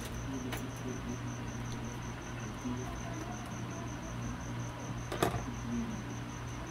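A cricket chirping in an even, steady pulse of about five chirps a second over a low steady hum. About five seconds in, a sharp knock as a plastic digital multimeter is set down on a wicker table.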